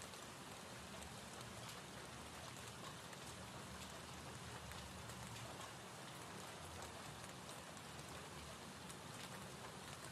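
Faint gentle-rain ambience recording: a steady hiss of rainfall with scattered tiny drop ticks.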